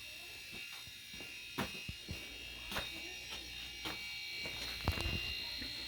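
Two refrigerator compressors running together to pump up an air tank: a quiet, steady little humming, with a few light clicks about once a second.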